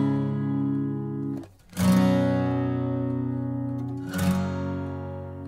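Background music of strummed guitar chords. A new chord is struck about two seconds in and another about four seconds in, each ringing on until the next.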